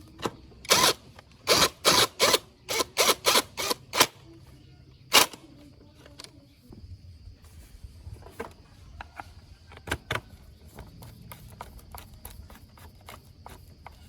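Repair work on a motorcycle: a quick run of about ten loud, sharp strikes in the first five seconds, like hammering, then lighter irregular clicks and taps of tools.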